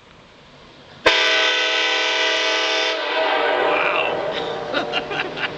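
Multi-chime train air horn blasting. It starts suddenly about a second in as one loud, steady chord; the chord shifts slightly a couple of seconds later, then fades under voices near the end.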